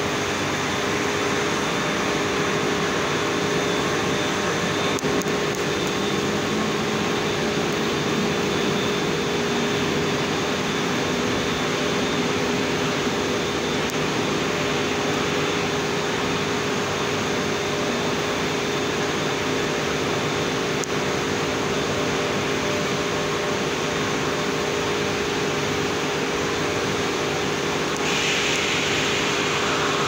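Steady industrial machinery drone of a blast furnace cast house while iron is being cast: an even roar with a constant hum running through it. About two seconds before the end, a brighter hiss joins in.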